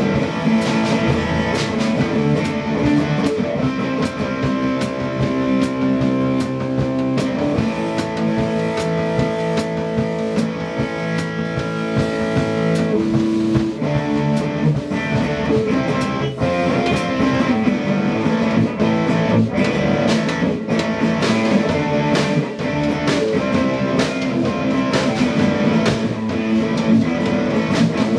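Live rock jam on electric guitar and drum kit: a guitar playing over a steady drum beat, with some long held guitar notes near the middle.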